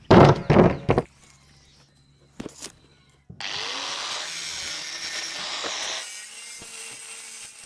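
Power tool cutting through 1-inch square steel pipe: a harsh, hissing cut starts suddenly about three seconds in and stays loud for nearly three seconds, then goes on more quietly with a steady hum near the end. A brief loud clatter comes in the first second.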